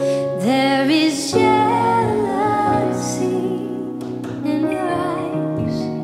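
Live worship music: a woman singing, her voice sliding between held notes, over a soft band accompaniment with a steady sustained low note underneath.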